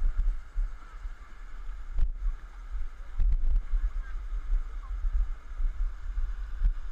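Fast river water rushing over a shallow rapid, under a low, uneven rumble of buffeting on the microphone.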